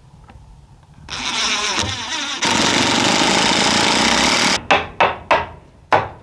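Cordless drill driving a screw through a steel strap hinge into a wooden door: it winds up about a second in, runs steadily and stops abruptly a little past halfway. Then four sharp hammer taps, knocking the shim wedges under the door.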